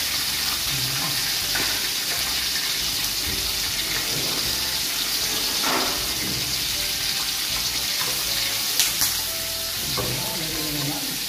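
Chopped pork for sisig sizzling steadily in a frying pan, with a spatula stirring it near the end.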